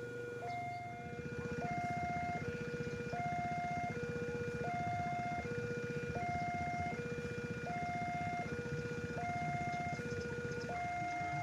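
Railway level crossing warning alarm sounding its two-tone signal, a higher and a lower tone alternating evenly about every three-quarters of a second, over a low engine rumble that grows louder about half a second in.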